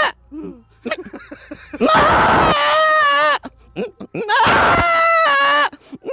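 A man imitating a goat bleating in pain, as a goat hit by a motorbike would cry: two long, wavering, high-pitched bleats, with a third starting at the very end.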